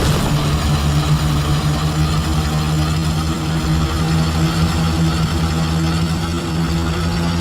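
An engine running steadily at idle, a low even drone.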